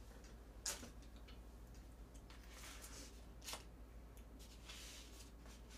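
Faint handling of plastic takeout food containers and chopsticks on a table: soft rustling with two sharp clicks, one under a second in and one a few seconds later.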